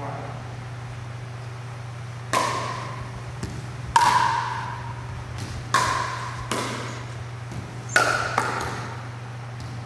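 Pickleball rally: hard paddles striking a plastic pickleball, four loud hollow pocks about one and a half to two seconds apart, each with a short ringing tail, with quieter taps between them.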